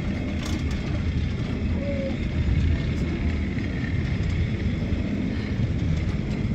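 Steady low rumble of a water-balanced cliff railway car riding up its steep rails, with a faint steady high whine.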